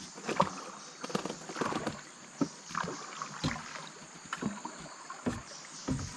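A bamboo pole working a small wooden boat along a river, with irregular knocks against the hull and splashes of water about every half second to a second.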